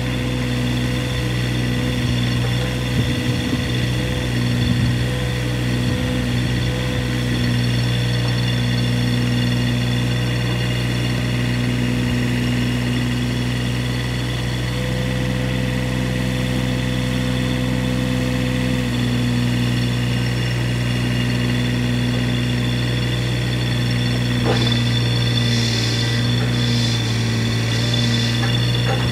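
Kubota KX015-4 mini excavator's three-cylinder diesel engine running steadily under hydraulic load while the boom, arm and bucket are worked. A single click comes about three-quarters of the way through, and a higher hiss comes and goes near the end.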